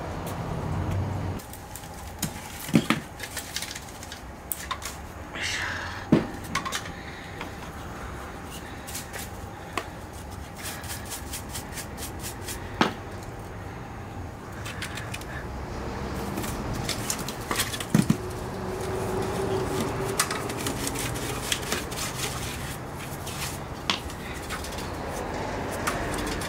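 Kitchen work clatter: scattered knocks, clinks and bumps of utensils, containers and cupboards being handled, with a faint steady hum through the first half.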